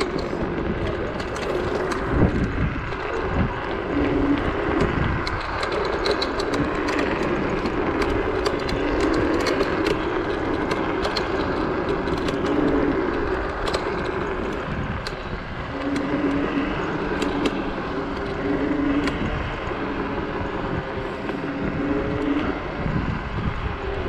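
A small electric motor whining, its pitch shifting up and down, over a heavy rumble of wind on the microphone and scattered sharp rattling clicks.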